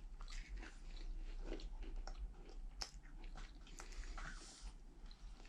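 Someone chewing a small chocolate cookie: soft, irregular crunches and mouth clicks.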